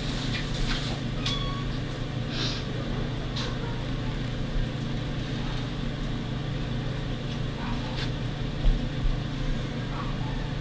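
Steady low hum with a few faint clicks and ticks scattered through it, and a low thump about nine seconds in.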